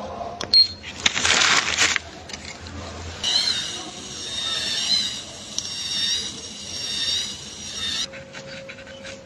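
A short hiss about a second in, then a high-speed dental drill whining for about five seconds, its high pitch wavering as it cuts.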